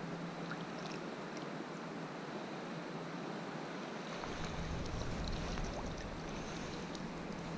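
Stream water running steadily over rocks, with a few faint light splashes. About four seconds in a low rumble joins it.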